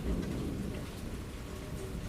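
Steady rain pattering down, with the low rumble of thunder dying away in the first half second.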